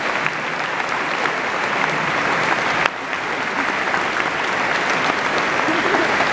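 A large audience applauding, a steady dense patter of many hands clapping, with a brief dip about three seconds in.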